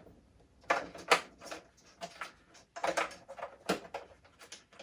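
Irregular plastic clicks and knocks from a Hasbro Vintage Collection Slave 1 toy ship being handled, about eight in all.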